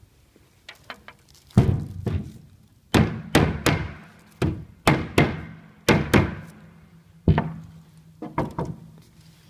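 About a dozen hard knocks in uneven groups, each with a short ringing tail: parts of a resin chiavari chair being struck together during assembly.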